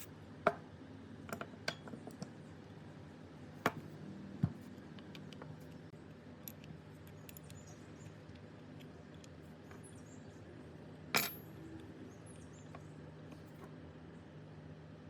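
Small metal parts clinking and tapping as they are handled: a scatter of sharp metallic clicks in the first few seconds, then one more about eleven seconds in, over a steady low hum.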